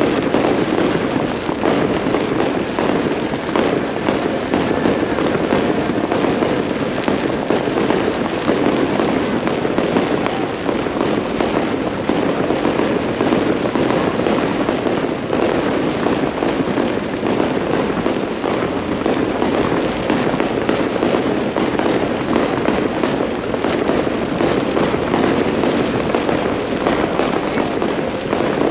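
Aerial fireworks show: a dense, continuous barrage of shell bursts and crackling, with no let-up.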